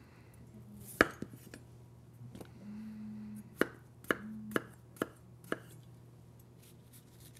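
Kitchen knife chopping potato finely, with sharp separate strikes. The loudest comes about a second in, and a steadier run follows at roughly two strikes a second, over a faint steady hum.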